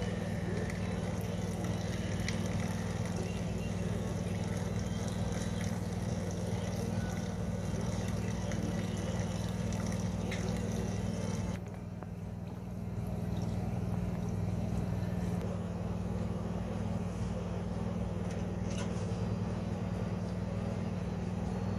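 Briggs & Stratton 163cc single-cylinder engine on a Murray snowblower running at a steady speed. Its sound dips and thins briefly about halfway through, then picks back up.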